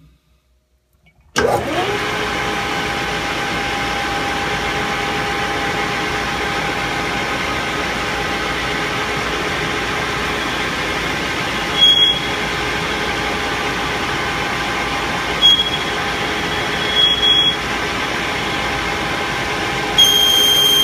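Metal lathe motor switched on about a second in and running steadily with a whine while cuts are taken on a large aluminum workpiece. A high-pitched squeal from the cutting tool comes and goes a few times and holds near the end.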